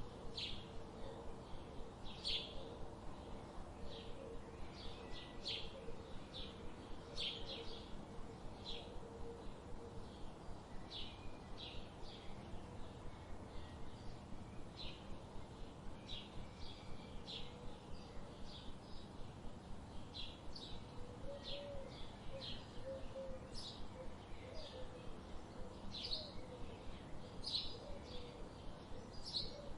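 Small birds chirping: short, high chirps repeated about twice a second, over a steady background hiss.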